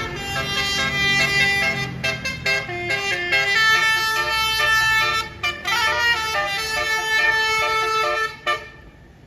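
Basuri telolet horn on a tour bus playing a tune: loud horn notes that hold and step from pitch to pitch, with a few short breaks, cutting off about eight and a half seconds in.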